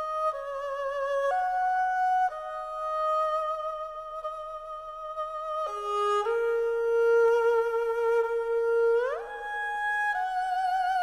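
Background music: a single bowed string line playing slow held notes with vibrato, sliding upward to a higher note about nine seconds in.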